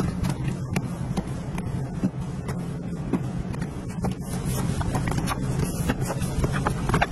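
Hand trigger spray bottle being pumped at a van window, then a cloth rubbing and wiping the glass, making a run of short, sharp clicks and scrapes over a steady low hum.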